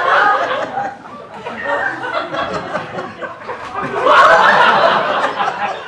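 Audience laughing in two waves: laughter fading within the first second, then swelling again about four seconds in.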